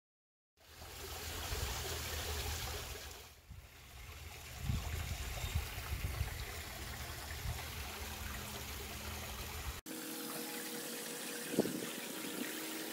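Steady outdoor noise of water trickling, with a low rumble under it that stops abruptly at a cut about ten seconds in.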